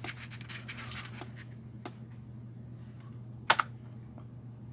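Keys on a computer keyboard being pressed: a quick run of keystrokes at the start, a single key a little later and one louder double click about three and a half seconds in, over a steady low hum.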